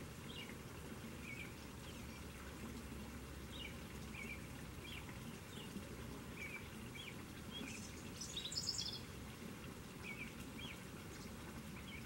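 Small birds chirping in short notes, scattered every second or so, over the steady splash of water pouring from a hand-pump spout into a rock pond. A louder, higher-pitched cluster of chirps comes about two-thirds of the way through.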